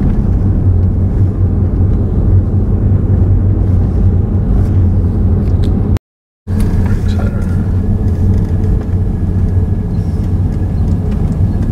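Car interior road and engine noise while driving slowly, a steady low rumble. It drops out completely for about half a second around the middle, then carries on with a faint steady whine.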